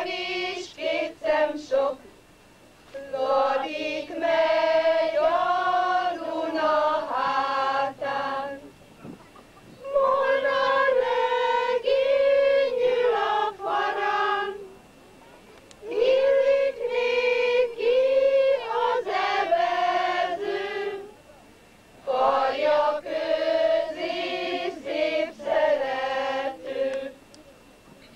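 A group of voices singing in unison without instruments, in phrases of about five seconds with short pauses between them.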